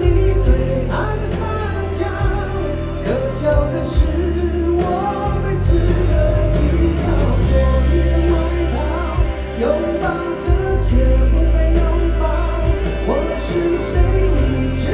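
A live band plays a pop song through a loud PA, with singing over a heavy bass line and a drum beat.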